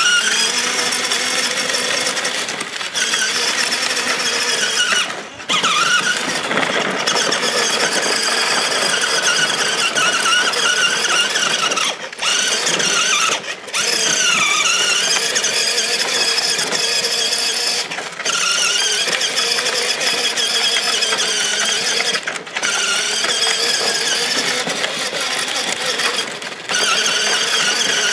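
Electric motors and gearboxes of a battery-powered children's ride-on quad whining steadily as it drives, cutting out briefly several times and then starting again.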